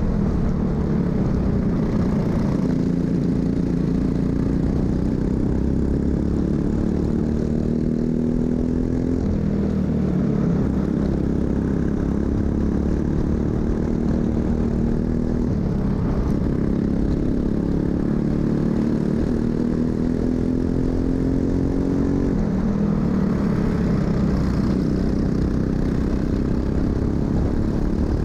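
Racing kart's Briggs & Stratton LO206 single-cylinder four-stroke engine under full throttle, heard on board. Its note climbs slowly along each straight and drops sharply three times when the driver lifts for a corner, then climbs again.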